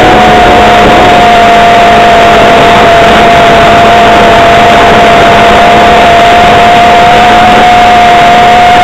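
Model aircraft's OS .55AX two-stroke glow engine running in flight at a steady high pitch, loud and close to the microphone, with a slight dip in pitch partway through.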